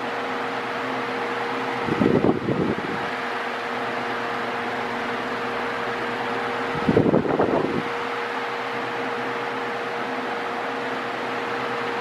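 Mondial Maxi Power 40 cm 140 W table fan running with oscillation on: a steady rush of air over a constant motor hum. Twice, about five seconds apart, the airflow buffets the microphone as the oscillating head sweeps past it.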